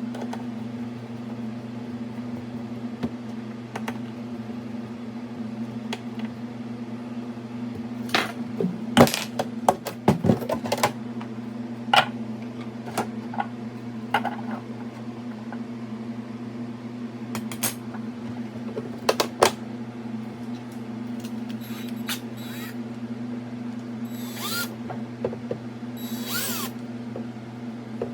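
Steady electrical hum under a series of sharp clicks and knocks of tools and parts being handled, with a couple of short whirring bursts near the end.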